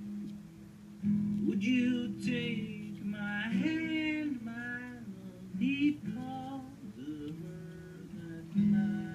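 Music: a guitar holding steady chords under a melody that bends up and down in pitch.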